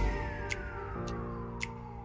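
Background music: sustained chords that shift about a second in, with a long falling sweep and a light tick about once a second.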